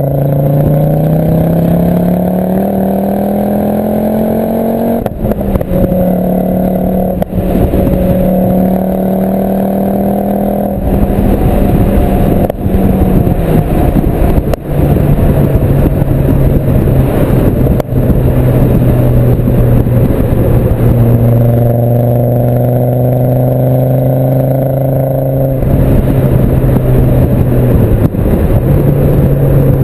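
Exhaust of a Mk2 Ford Focus RS with a turbocharged 2.5-litre five-cylinder, running through a full Milltek exhaust with no silencers and a sports catalyst, heard at the tail while driving. It climbs in pitch for about five seconds, breaks briefly, then drones steadily. It turns rougher and louder for a few seconds near the middle, then settles at lower revs.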